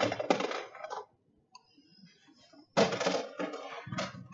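Small hard items clattering as they are dropped into containers, in two bursts: one at the start and a longer one from about three seconds in.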